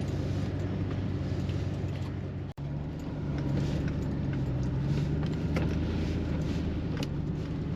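Truck engine running and road noise heard from inside the cab while driving slowly over a rough, snow-covered, icy road, with a few light rattles. The sound drops out for an instant about two and a half seconds in, and the engine note is a little higher and stronger afterwards.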